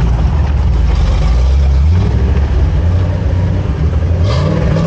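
Nissan Patrol GR Y61 4x4's engine running steadily. Its pitch steps up a little about two seconds in, then rises in a short rev near the end before dropping back.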